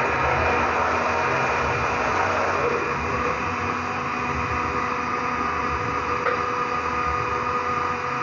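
Steady mechanical hum with hiss, its tone shifting slightly about three seconds in.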